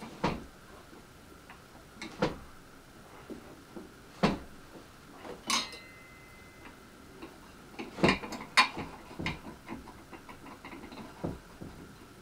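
Scattered knocks and clicks of hard parts being handled and fitted while a Stihl mini cultivator is assembled, one of them, about five and a half seconds in, with a brief metallic ring.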